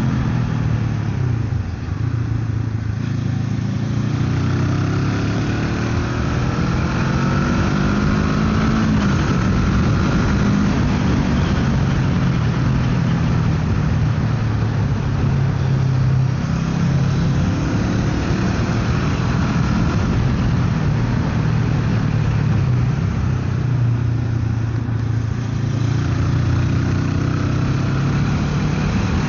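Motorcycle engine running under way, its pitch climbing and falling with throttle and gear changes, dipping briefly about two seconds in and again near the end, over a steady rush of wind and road noise.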